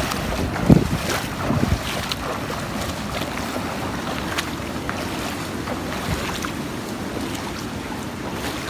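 Footsteps wading through floodwater about a foot deep, sloshing and splashing steadily, with wind buffeting the phone's microphone.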